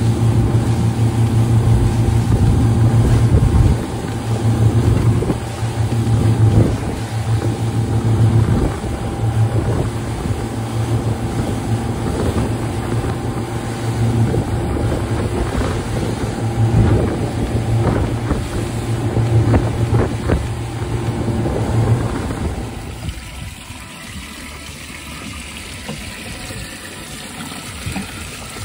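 Twin 150 hp outboard motors running steadily at cruising speed, a loud low drone with wind and spray noise. About three-quarters of the way through it gives way to a quieter hiss of water pouring into a baitwell.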